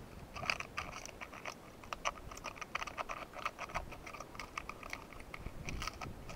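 A small hand tool scraping and poking inside a hole in the rock, clearing out grit and debris: a quick, irregular run of little scratches and clicks.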